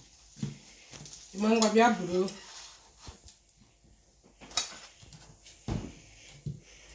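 Spatula scraping a frying pan and a plate clinking as a cooked flatbread is lifted onto it, with several sharp clicks. A short, wavering voice sound about one and a half seconds in is the loudest thing.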